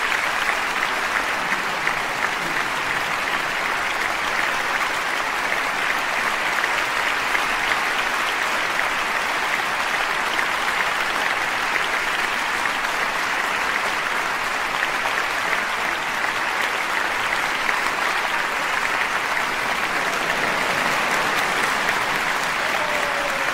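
Concert-hall audience applauding steadily, a dense, even clapping of a large crowd.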